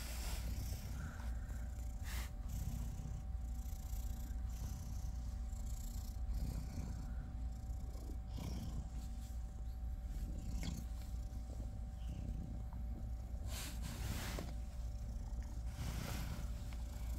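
Domestic cat purring steadily, a low continuous rumble, as it is stroked. A few brief rustles of contact are heard, near the start and twice more toward the end.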